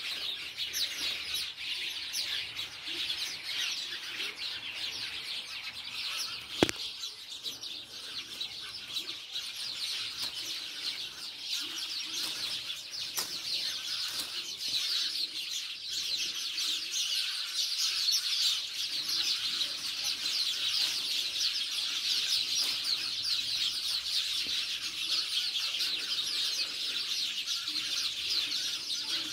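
Many small birds chirping continuously in a dense chatter, with one sharp click about seven seconds in.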